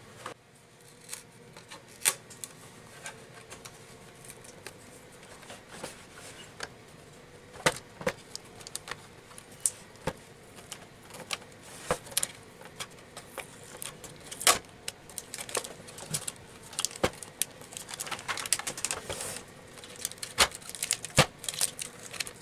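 Irregular sharp clicks, taps and small rattles from hands handling the opened Zebra ZD500 label printer's plastic housing and its display cable, with a denser run of rattling clicks near the end.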